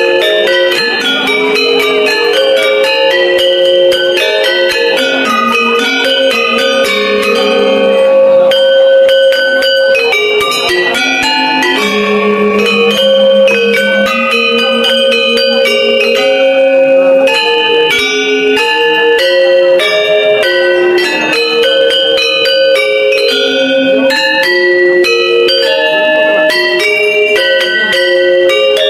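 Balinese gender ensemble: bronze-keyed metallophones over bamboo resonators, struck with two disc-headed mallets, playing quick, continuous runs of ringing notes that sustain and overlap.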